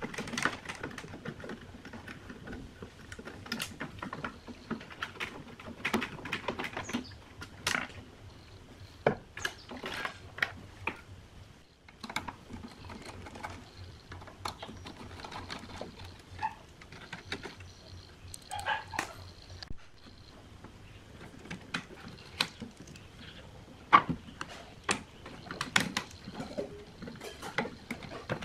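Scattered clicks, taps and scrapes of a screwdriver and loose metal parts against the metal chassis of a Crown Macro-Tech 2400 power amplifier being taken apart, with a few sharper knocks among them.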